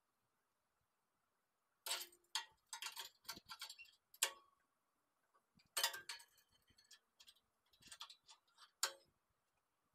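Small Lincoln 100-amp MIG welder running flux-core wire on steel angle, crackling in two short weld runs of roughly two and a half to three seconds each, with a pause between them.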